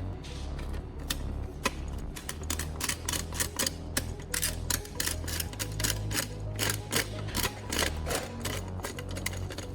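A rapid, irregular series of sharp clicks, sparse at first and then several a second from about two seconds in, over a steady low hum.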